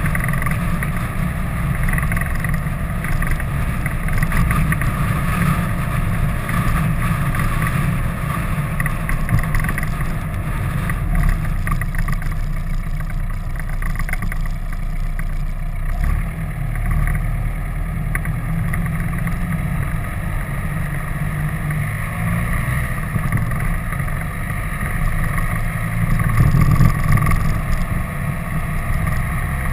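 Motorcycle engine running steadily at road speed, mixed with wind and road noise on the mounted camera's microphone.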